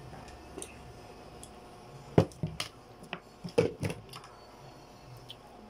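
Mealtime handling noises while eating by hand at a table: a quick run of about six sharp clicks and knocks between about two and four seconds in, the first the loudest, over faint squishy sounds.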